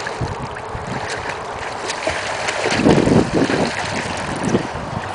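Pool water splashing and churning as children swim and kick through it, with scattered small splashes and a louder patch of churning about three seconds in.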